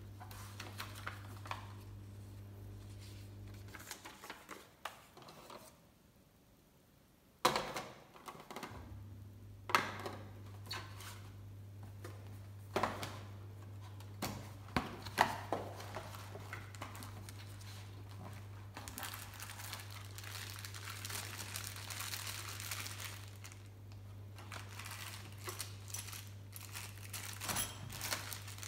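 Cardboard and paper packaging handled by hand: rustling and scraping, with a few sharp knocks and taps, and a longer stretch of plastic and paper crinkling a little past halfway. A steady low hum runs underneath, dropping out for about five seconds near the start.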